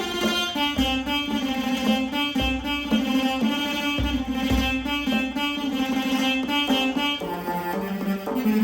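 Jakhe, a Thai three-string floor zither with a jackfruit-wood body, playing a melody of plucked notes over a held lower note, with a few low thumps.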